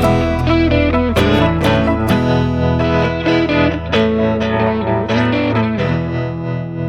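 Background music: guitar with effects, a steady bass under a melody of plucked notes.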